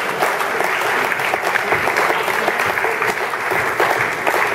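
Audience applauding: many hands clapping steadily in a dense, even patter.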